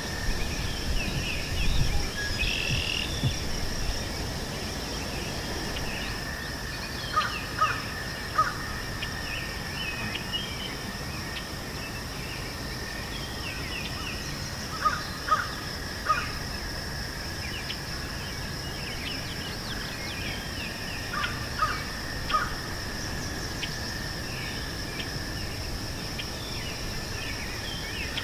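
Meadow ambience: a steady high insect trill, with small birds chirping here and there. A louder bird calls in sets of three short calls, three such sets about seven seconds apart.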